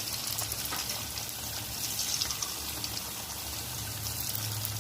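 Coated chicken pieces deep-frying in hot oil in a kadai: a steady sizzling hiss with scattered small crackles, over a low steady hum.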